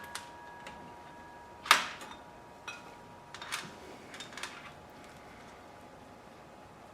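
A few light clicks and knocks from hands working a brake line into place around the motorcycle's front end, with one sharper click about two seconds in.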